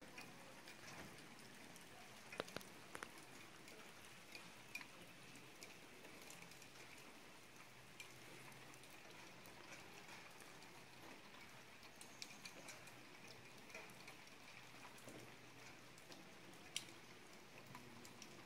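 Faint dripping and pattering of meltwater and wet snow, with scattered small clicks over quiet outdoor ambience.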